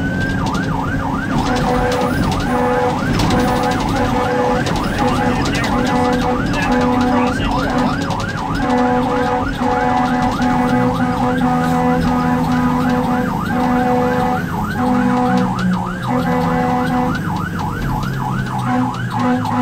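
Fire engine's electronic siren on a fast yelp, about three sweeps a second, heard from inside the cab. Over it, a low steady horn sounds in repeated blasts of a second or two.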